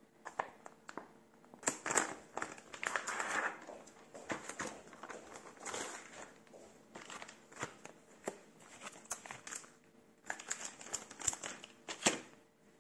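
Thin plastic food packaging crinkling and rustling in irregular bursts as hands handle and peel it open, with a short lull about ten seconds in. A faint steady hum sits underneath.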